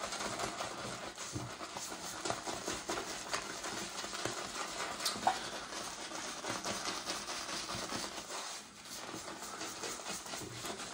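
Soft synthetic shaving brush swirled against a puck of BullDog shaving soap to load it, a steady scratchy patter of bristles working the soap, briefly easing off about eight and a half seconds in. The brush is nearly dry, being loaded with only a little water.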